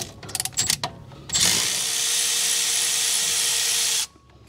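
A few light metal clinks as a wrench and ratchet are fitted. Then a cordless electric ratchet runs steadily for about two and a half seconds, spinning out a caliper slide pin bolt, and stops suddenly.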